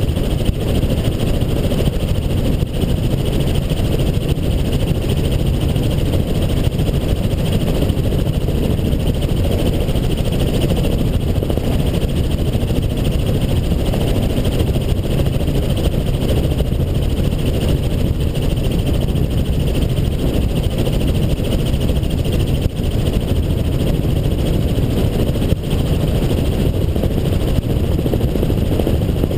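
Helicopter in flight: steady, unbroken engine and rotor noise, heavy in the low range.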